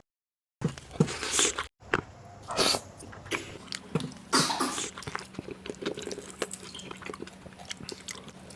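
Close-miked eating sounds: biting into and chewing fatty pork, with wet mouth clicks and several short, breathy bursts of noise.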